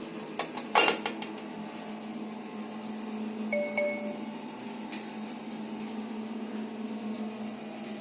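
A few sharp clicks and knocks on hard surfaces. About three and a half seconds in, two quick light strikes on a hard object ring briefly with a clinking tone, over a steady low hum.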